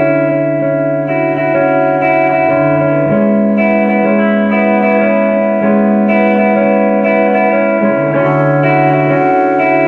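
Two electric guitars playing a slow instrumental passage of layered, sustained notes through effects. The lowest note steps up about three seconds in and drops back near the end.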